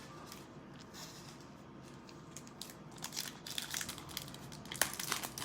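Packaging of a trading-card blaster box being handled and torn open: quiet at first, then a quick run of crinkling, crackling tears from about three seconds in.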